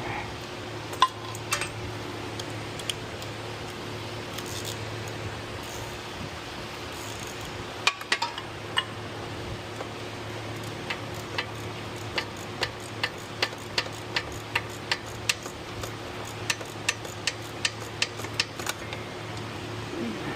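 3/8-drive ratchet with a 24 mm socket clicking as it works a tight oil pressure switch loose: a few scattered clicks and knocks of metal tools, then a run of even clicks about two a second.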